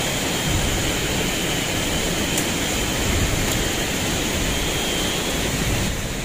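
Steady rushing of a forest stream, an even noise with no breaks, with a faint high steady tone above it.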